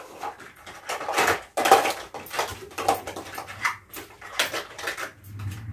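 Small bottles, tubes and a cup being picked up, moved about and knocked together on a bed: an irregular run of light clatters and rustles.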